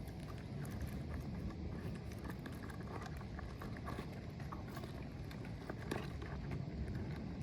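Irregular light clicks and taps of hand-tool work on asphalt roof shingles, over a steady low rumble of wind on the microphone.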